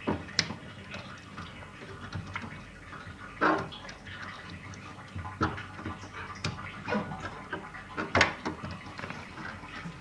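Scattered sharp clicks and knocks of plastic being handled as the front-load washing machine's drain pump filter is taken out and cleaned of debris.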